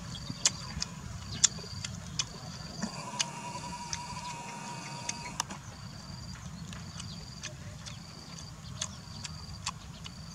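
A person chewing food, with sharp wet lip-smacking clicks, over a short high chirp that repeats a little more than once a second. A longer buzzing tone with several pitches runs from about three to five seconds in.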